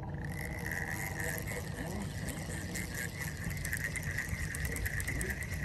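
Fishing reel being cranked in, a fast run of light clicks, over a low rumble of wind on the microphone and a steady high trill in the background.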